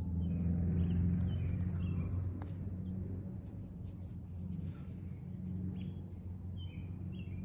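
Small birds chirping now and then over a low, steady rumble that is strongest in the first couple of seconds.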